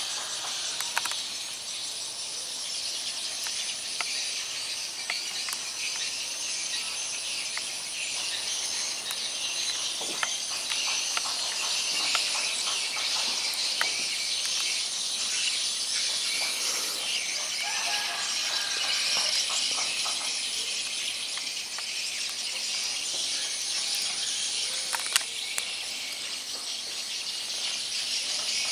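Steady, high-pitched chorus of insects, with a few faint clicks scattered through.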